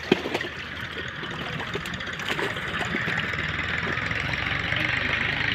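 An engine running steadily with an even low pulse, along with light splashing and a few small clicks of water being handled.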